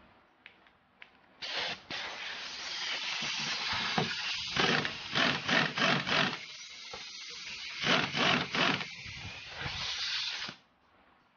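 Pneumatic impact wrench hammering the top nut off a Mazda Premacy's front shock absorber shaft, with the hiss of air. It starts about a second and a half in, runs in several louder bursts, and stops shortly before the end.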